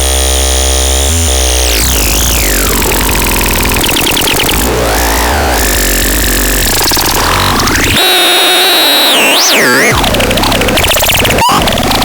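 Smrťon electronic noise synthesizer making a loud, harsh din of gliding and warbling pitches over a steady low drone. The drone drops out about two-thirds of the way through, and the pitches then wobble quickly up and down.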